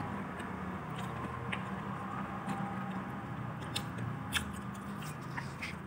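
Crispy fried chicken being bitten and chewed, with scattered sharp crackles and clicks over a low steady room background.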